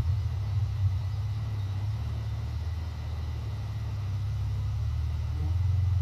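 Steady low rumble of wind buffeting the microphone.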